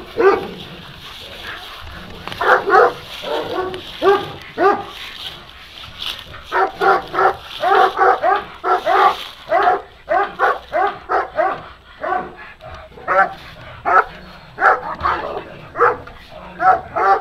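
Sarplaninac sheepdog barking: short barks in quick runs of several, with brief pauses between the runs.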